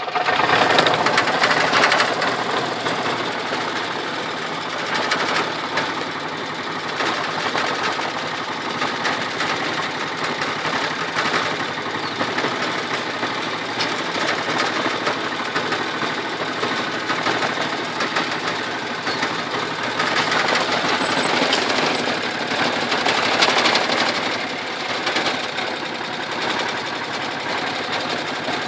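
A small vehicle's steady, rapid mechanical rattle and clatter as it rides along. It is a little louder near the start and again about twenty seconds in.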